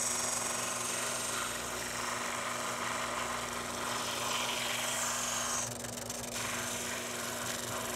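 Drill press spinning a drum sander, with a steady motor hum under the rasping hiss of a wooden lure body being pressed against the sanding sleeve to shape its edge. The sanding hiss swells and eases as the piece is worked and drops out briefly about six seconds in, leaving only the motor hum.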